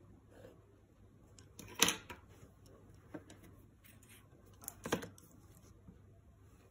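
Drawing instruments handled on paper: two short clatters about three seconds apart as a compass, a pen and a clear plastic ruler are put down and picked up, with a few faint ticks and scratches in between.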